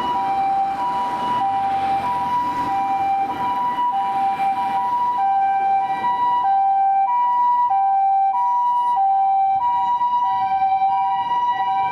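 Japanese ambulance two-tone siren alternating a high and a low tone ("pee-poh") about every two-thirds of a second. A rushing noise under it fades out after about five seconds.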